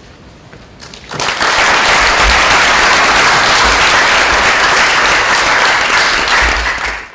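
Audience applauding, starting about a second in, holding steady and loud, and cutting off near the end.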